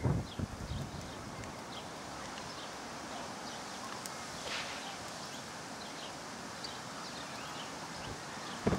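Steady faint outdoor noise with light wind, scattered soft high ticks, and a few low bumps on the microphone in the first half-second.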